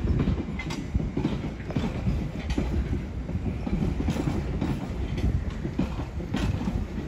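Train running through the station, a steady rumble with wheels clicking over rail joints.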